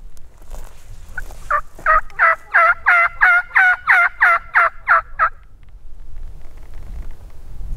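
A loud run of about a dozen turkey yelps, about three a second, each note breaking from high to low, over a low wind rumble.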